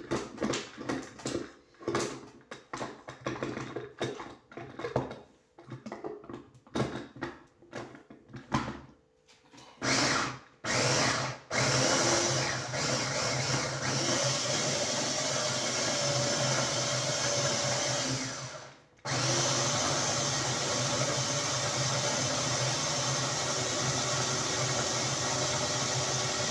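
Electric mini food chopper chopping onion, tomato and green pepper into a fine mash. After several seconds of short, irregular bursts it starts in two brief pulses about ten seconds in, then runs steadily with a low hum, stopping briefly once before running on.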